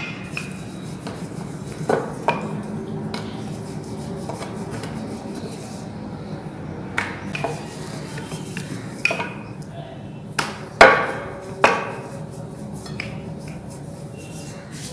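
Wooden rolling pin rolling out paratha dough on a hard surface, with scattered sharp knocks of the pin against the surface, the loudest two a little after ten seconds in.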